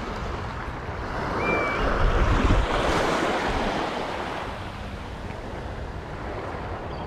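Small waves washing onto a sandy beach, with wind buffeting the microphone. The rush swells with a gust about two seconds in, then eases.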